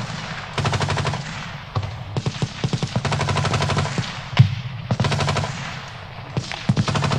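Machine-gun fire in repeated long bursts, about four in all, each a rapid string of shots, with a single louder shot between bursts a little past the middle.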